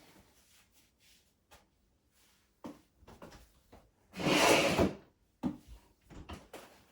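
Small clicks and knocks of hardware being handled, with one loud scraping slide lasting just under a second about four seconds in.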